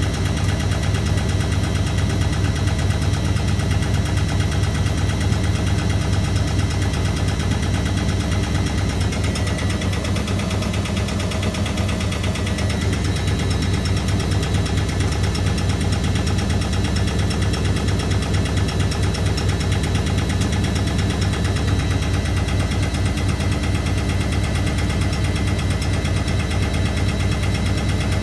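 1982 Hoover A3190 Electron 1100 De Luxe front-loading washing machine in its spin cycle, the drum spinning at speed with a steady low drone and a rapid, even pulsing.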